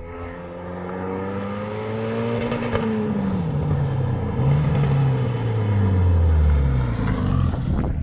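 Renault Mégane 3 RS turbocharged four-cylinder running through a decat, full straight-through exhaust: the engine note climbs a little, then falls slowly in pitch over several seconds while getting louder, with a sharp pop about three seconds in.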